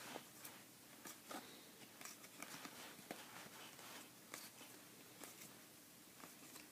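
Trading cards being handled and flipped through by hand: faint, irregular soft clicks and slides of card stock, a few a second.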